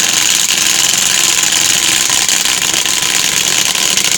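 Chicago Electric 12 V lithium-ion 1/4-inch hex impact driver hammering steadily as it drives a lag bolt into wood through a socket adapter. The rapid impacts run loud and unbroken.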